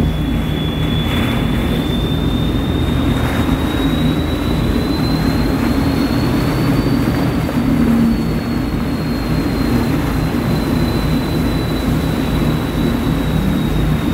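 Catamaran ferry's engines running steadily under way: a heavy low drone with a thin high whine that rises slightly in pitch and falls back, over the rush of churning wake water.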